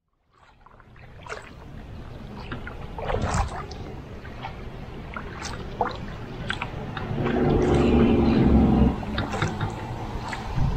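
Double-bladed paddle strokes dipping and splashing into river water beside a canoe, with drips running off the blades. A louder low rumble swells and fades about seven to nine seconds in.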